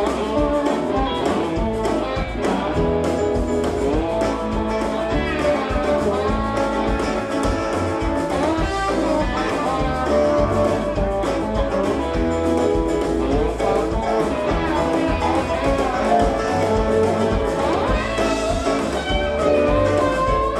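Background music: a guitar-led blues track with a steady beat.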